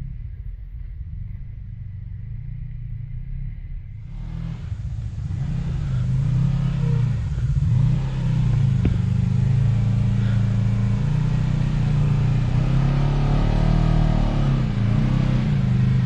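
Side-by-side UTV engine running, muffled at first, then growing louder about four seconds in and revving up and down, its pitch rising and falling repeatedly near the end.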